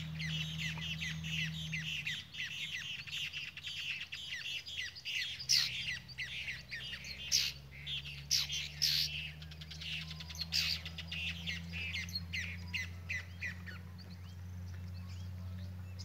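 A flock of wild birds chirping and calling together from the trees. The calls are dense and overlapping for the first few seconds, then thin to scattered sharp calls, over a steady low hum.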